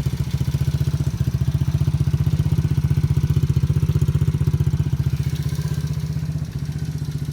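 125cc ATV engine idling steadily, running well after its no-start fault was fixed. The idle settles slightly quieter about six and a half seconds in.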